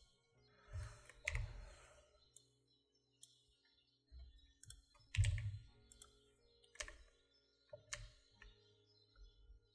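Scattered computer keyboard keystrokes and mouse clicks, a handful of separate taps at uneven intervals, the loudest about five seconds in.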